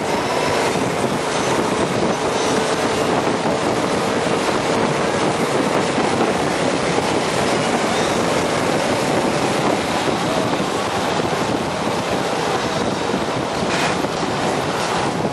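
AC Cobra replica driving at speed with its cockpit open, the engine running under a steady rush of wind buffeting the microphone.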